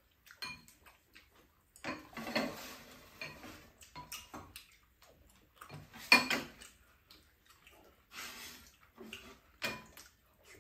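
Metal spoons clinking and scraping against ceramic bowls at a meal, in scattered short knocks, the sharpest about six seconds in.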